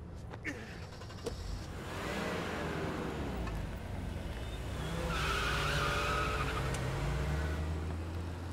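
Car doors shut with a couple of short knocks, then a Volkswagen Golf hatchback pulls away hard, its engine revving up in pitch. About five seconds in, the tyres squeal loudly for a second or two.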